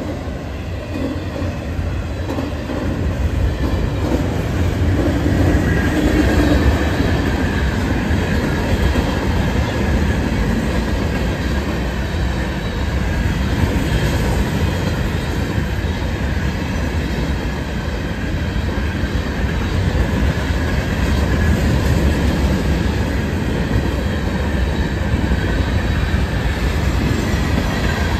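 Freight train of autorack and hopper cars rolling past at a level crossing: a steady rumble of steel wheels on rail, with a faint wavering wheel squeal.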